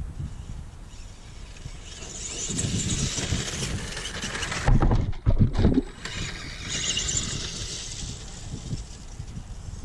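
Electric motor and gear whine from a Tamiya Super Clod Buster RC monster truck, driven by Tamiya Super Sport TZ motors on a 2S LiPo, as it runs across grass. The whine rises and falls, and a loud low rumble comes in about halfway through.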